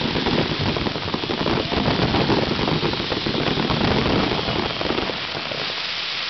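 Fireworks finale: a dense barrage of shells going off together, a continuous rain-like crackling over low thuds, thinning out near the end.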